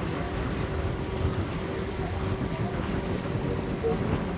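Small passenger ferry (river taxi) under way, its engine running with a steady low drone. Wind buffets the microphone.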